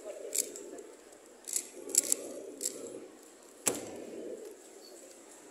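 A few sharp clicks from a Square-1 puzzle being turned, then one sharp slap about three and a half seconds in as the puzzle is put down and hands hit the stackmat timer to stop it. A low murmur of voices sits underneath.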